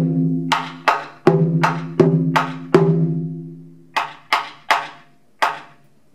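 A taiko barrel drum on a slant stand struck with bachi: about seven hits in the first three seconds, each ringing on with a low drum tone, then four sharp wooden clacks of the bachi from about four seconds in.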